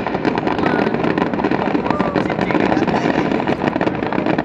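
Fireworks going off in a dense, continuous run of pops and bangs, with crowd voices mixed in.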